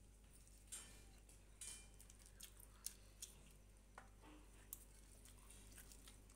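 Near silence: faint room tone with a handful of brief, soft clicks and taps spaced irregularly through it.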